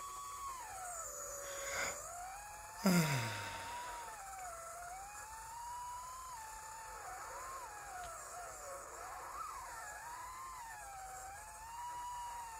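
Diatone GT2-150 mini-quad's brushless motors whining in flight, played back from the flight recording, the pitch rising and falling with the throttle. A sharp knock about three seconds in, followed by a tone sliding downward.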